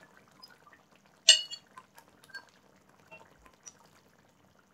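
A steel ladle clinks sharply once against the cookware about a second in, followed by a few lighter taps, as chickpeas are spooned into the pan. Underneath, the curry gravy bubbles faintly at a simmer.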